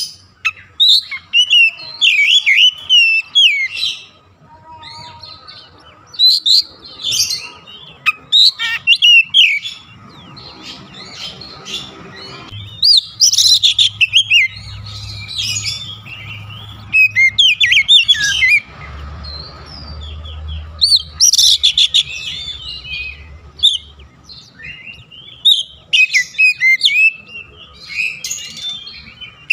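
Caged male oriental magpie-robin singing: loud, varied whistled phrases of quick rising and falling notes, in bursts separated by short pauses.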